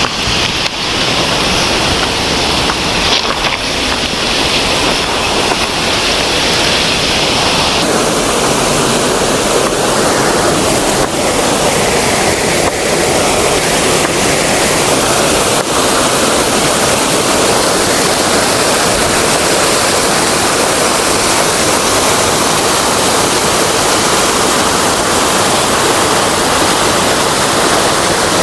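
Waterfall rushing loudly and steadily. Over it, a high-pitched hiss cuts off suddenly about eight seconds in.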